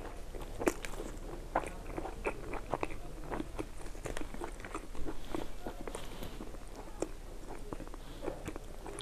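Close-up eating sounds: a person chewing, with irregular crisp crunches and wet mouth clicks.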